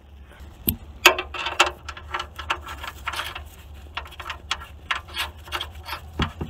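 Irregular clicking and short scraping of hand tools on metal as the oil drain bolt is put back into the van's oil pan, a few strokes a second, starting about a second in.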